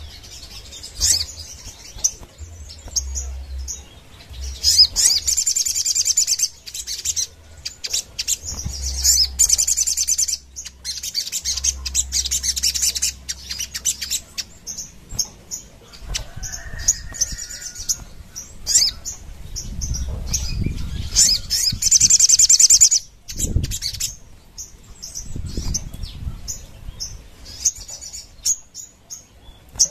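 Caged sogon (sunbird) singing hard. Rapid, high-pitched trilling phrases come again and again, each a second or more long, between short sharp chirps.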